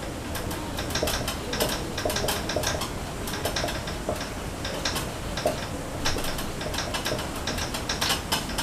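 Marker pen writing on a whiteboard: short, irregular squeaks and taps of the felt tip, a few strokes a second.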